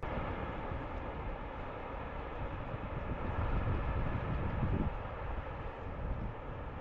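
Steady rushing of a shallow mountain river flowing over stones, with a low rumble underneath.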